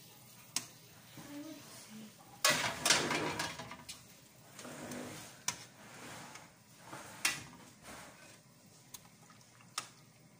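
Metal ladle clinking and knocking against an aluminium stock pot and a metal baking tray as boiled chicken pieces are scooped out of the broth and set down, with a rougher stretch of scraping and sloshing a few seconds in.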